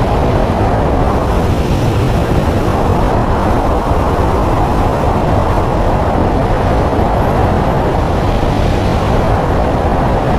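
Steady, loud road noise of a moving car.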